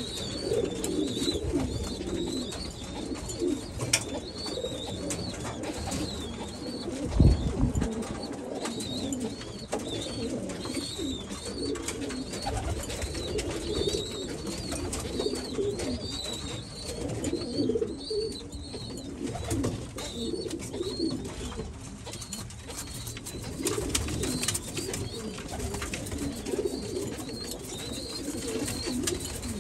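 Domestic pigeons cooing over and over in low, throaty warbles. A higher, chirp-like call repeats in the background, and there is a single low thump about seven seconds in.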